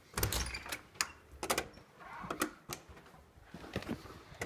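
A door's deadbolt and knob clicking and rattling as they are unlocked and turned, and the door opening: a quick string of sharp clicks and knocks, loudest in the first second, then quieter.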